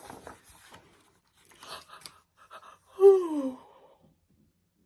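A woman's long sigh, one loud voiced breath falling in pitch, about three seconds in, acting out a tired, sleepy machine. Soft rustles come before it.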